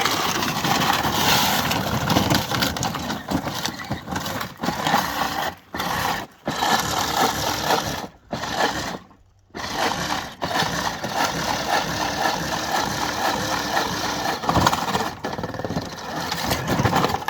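Power Wheels Jeep Hurricane ride-on toy driving over rough, rocky ground: the whine of its small electric drive motors and plastic gearboxes mixed with the scrape and crunch of its plastic wheels on rock and gravel. The sound stops briefly several times and then picks up again.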